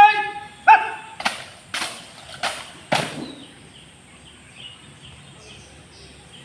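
A shouted drill command, then four sharp slaps about half a second apart as the squad moves through the present-arms salute with SLR rifles, hands and rifles struck in unison.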